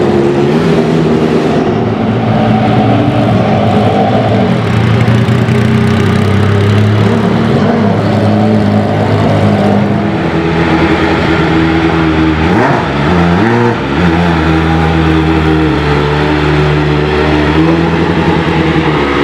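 Race car engines running at low speed as the cars creep along the garage lane, holding steady notes that shift every few seconds. About two-thirds of the way in, one engine gives a quick rev blip, dipping and rising in pitch.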